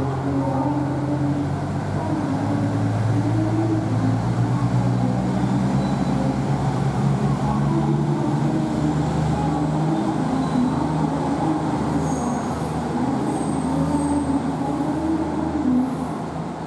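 KiHa 85 series diesel railcar pulling out of the station, its diesel engines running with a steady low hum that shifts in pitch as the train gets under way.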